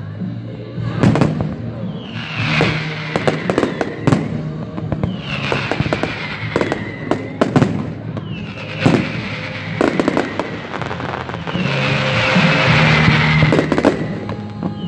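Aerial fireworks going off: sharp bangs of bursting shells every second or two, with music playing underneath.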